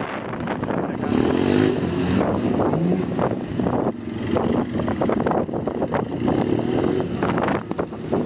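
BMW motorcycle engine revving up and down as the bike is accelerated and braked through tight low-speed turns, the pitch rising and falling in short surges about a second in and again near the end. Wind buffets the microphone throughout.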